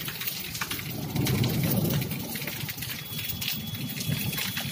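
Heavy rain falling on a flat concrete rooftop, a steady hiss of drops splattering on the wet surface. A low rumble swells about a second in and fades away by the middle.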